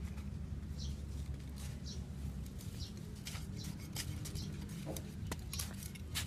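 Small hand trowel digging and scraping into dry, clumpy soil, with short clicks and scrapes from about three seconds in, while a small bird chirps about once a second over a steady low rumble.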